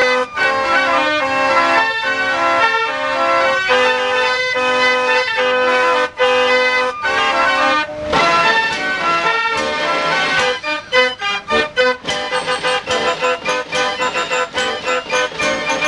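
A 1900 Gavioli 89-key fairground organ playing a tune on its pipes. From about ten and a half seconds in, the notes turn short and sharp percussion strikes come through in a quick rhythm.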